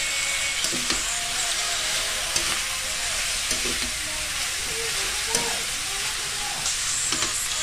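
Metal spatula stirring and scraping ground meat and mung beans around a stainless steel wok, with a steady sizzle of frying and a few sharp clinks of the spatula against the pan.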